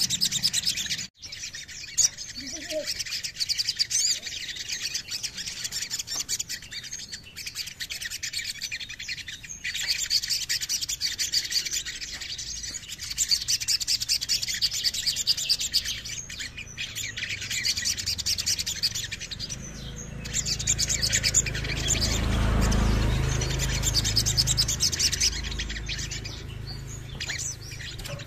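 Male olive-backed sunbird singing: long runs of rapid, high-pitched trills and chattering phrases with short pauses between them. A low rumble swells under the song about two-thirds of the way through.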